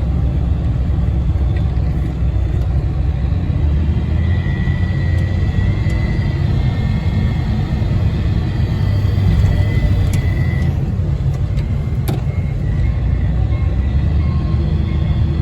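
Engine of a loader working a snow bucket, running steadily with a low rumble. A faint high whine runs from about four to ten seconds in, and a couple of light clicks come near the end.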